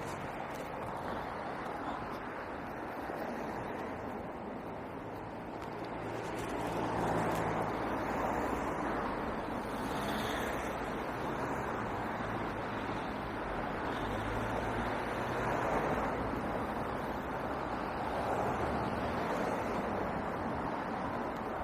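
Road traffic going past: a steady rush of tyres and engines that swells several times as vehicles pass.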